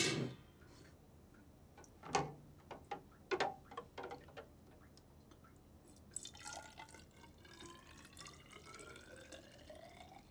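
Wort trickling from a measuring cup into a tall, narrow graduated test cylinder, its pitch rising steadily as the cylinder fills. Before the pour, a few sharp clinks and knocks of glassware and utensils being handled.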